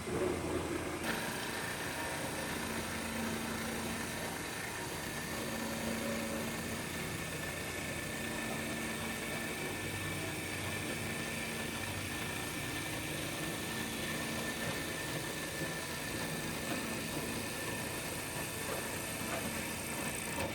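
Two-spindle CNC wood lathe running steadily, with a hum of motors and a hiss that sets in about a second in and holds.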